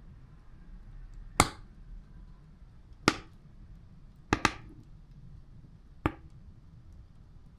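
Wood fire burning, with sharp loud pops as the wood cracks in the heat: five pops over a few seconds, two of them in quick succession about halfway, over a faint low rumble.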